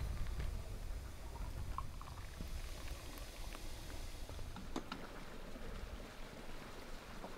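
Low wind rumble on the microphone, outdoors, with a few light clicks about five seconds in.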